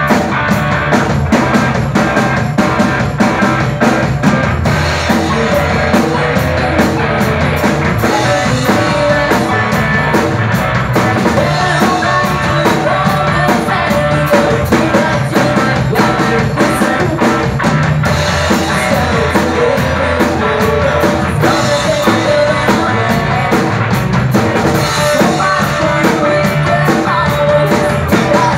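Live rock band playing loudly: drum kit, electric guitars and a woman singing into a microphone.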